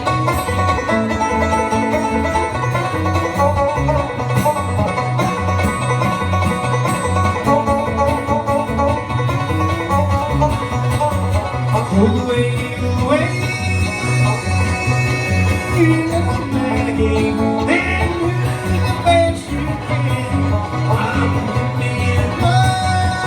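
Bluegrass band playing an instrumental passage: banjo and guitar over a steady, even bass beat, with a sliding lead line about midway.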